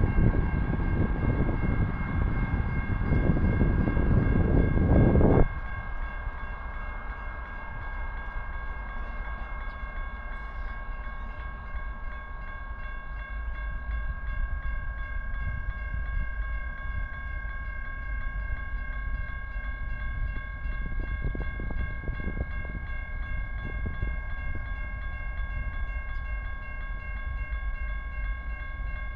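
Grade-crossing warning bell ringing steadily while the crossing signals flash for an approaching train. A loud low rushing noise covers the first five seconds and cuts off suddenly.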